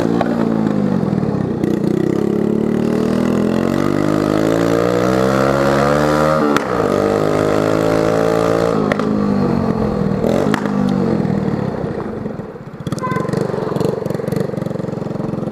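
Dafra Zig 100 scooter's single-cylinder engine running loud through a bare exhaust pipe, its muffler tip broken off. The engine revs up steadily for about six seconds, drops for a moment, climbs again, then winds down. Near the end it settles to a lower, choppier running.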